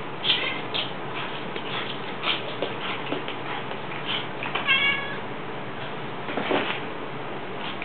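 Domestic cat giving a short meow about five seconds in, with a few light taps and rustles over a steady hiss.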